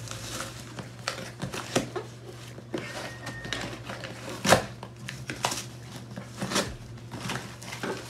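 Scissors cutting packing tape on a cardboard shipping box and the box being handled and its flaps pulled open: a run of scrapes, rustles and taps, with one loud knock about four and a half seconds in. A low steady hum underneath.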